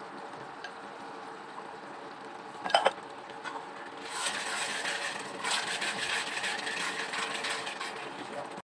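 Wooden spatula stirring and scraping through olives, chilies and oil in a cooking pan, starting about four seconds in and cutting off abruptly near the end. Before it there is a steady low hum, broken just under three seconds in by a brief pitched sound.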